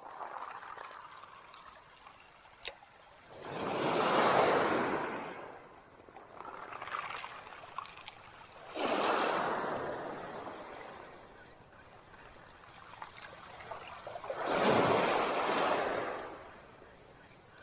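Small waves washing up onto a pebble beach, three times, each wash swelling and fading over about two seconds, over a faint steady hiss of the sea.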